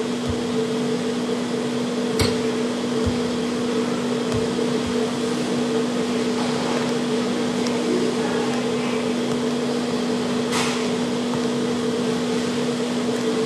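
Steady machine hum over an even hiss, with two faint clicks, about two seconds in and again about ten seconds in.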